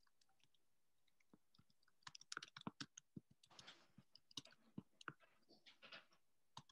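Faint, irregular pops and crackles start about two seconds in: fish soup simmering in a stainless steel pan.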